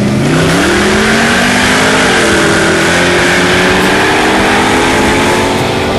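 Car engines at full throttle in a street race from a roll, heard from inside one of the cars: the engine pitch climbs, drops once about two seconds in at a gear shift, then climbs again, over a steady rush of wind and road noise.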